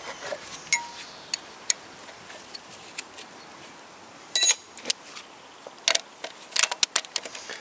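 Socket ratchet wrench clicking as it loosens the bolts of a Toyota VVT-i engine's timing chain tensioner plate. Scattered metal clicks and taps, a ringing clink about halfway, and a quick run of ratchet clicks near the end.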